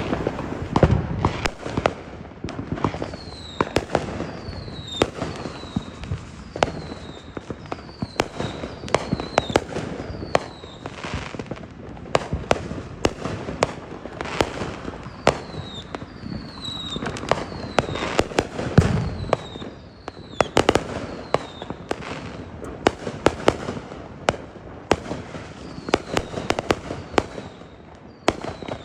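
Fireworks show: a rapid, irregular run of sharp bangs and crackles with a few deeper booms, and short falling whistles repeating above them.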